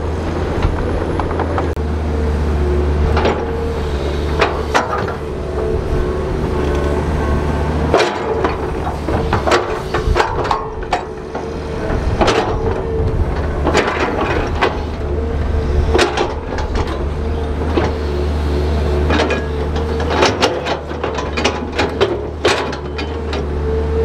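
Large crawler bulldozer's diesel engine running under load, with frequent irregular sharp clanks and knocks.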